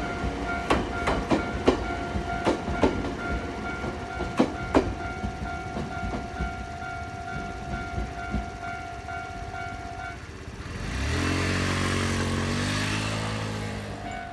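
Japanese level-crossing warning bell ringing its steady repeating ding while train wheels click over the rail joints. The bell stops about ten seconds in, and then a passing electric train takes over with a loud low hum that rises slightly in pitch under a hiss.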